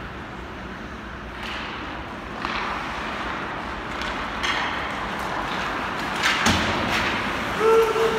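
Ice hockey game sound in a rink: a steady noisy background with several sharp knocks and thuds, like sticks and puck against the ice and boards, the loudest a little after six seconds. A held tone starts near the end.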